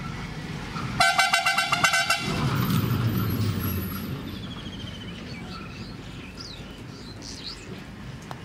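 A vehicle horn sounds once, a buzzing tone lasting just over a second, starting about a second in. Faint bird chirps follow.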